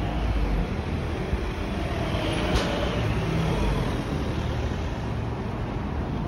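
Road traffic running on a city street, a steady rumble of passing vehicles, with one brief sharp sound about two and a half seconds in.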